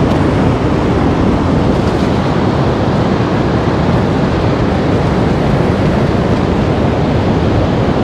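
Strong wind blowing across the microphone over the surf of a stormy sea, a loud, steady rush with no breaks.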